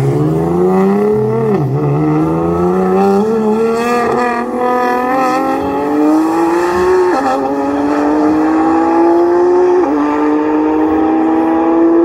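Twin-turbo Audi R8 V10 and twin-turbo Nissan GT-R accelerating flat out in a roll race. The engine pitch climbs steadily and drops back with upshifts about 2, 7 and 10 seconds in.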